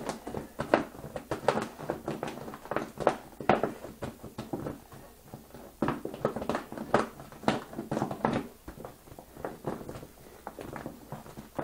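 Gloved hands handling and pressing on a taped sheet of paper and plastic: irregular rustling and tapping.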